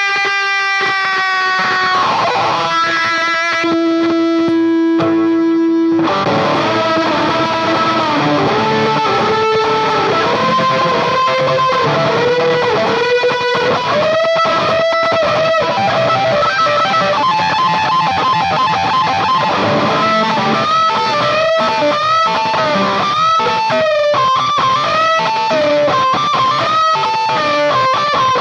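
Stratocaster-style electric guitar played with crunchy distortion through a pedalboard, with a Boss Chorus Ensemble set up as the basic crunch. Long held, bent notes at first, then from about six seconds in a busy run of quick lead notes.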